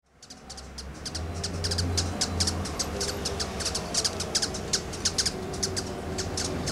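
Rufous-tailed hummingbirds giving short, high, sharp chip calls, several a second, over a steady low hum. The sound fades in over the first second.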